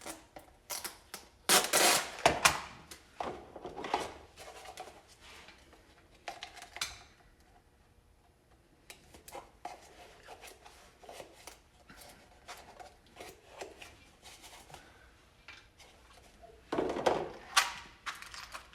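Handling noises from boxes of screws and loose screws being moved and set into a plastic organizer: scattered clicks, rattles and rustles, loudest about two seconds in and again near the end.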